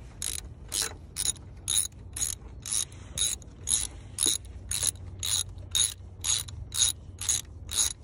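Hand ratchet clicking in quick, even back-strokes, about two a second, as it turns the single screw holding down the Saab 9-3 turbo's plastic engine cover.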